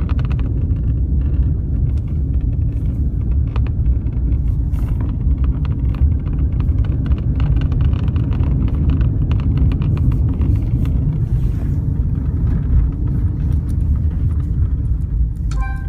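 Mazda CX-5 on the move, a steady low road rumble with irregular light knocks throughout: the unidentified knock the owner is asking about. A brief pitched beep sounds near the end.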